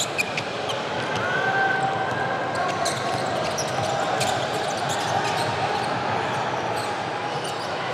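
Basketball dribbled on a hardwood gym floor, a run of sharp bounces over the steady murmur of spectators' voices in the echoing gym.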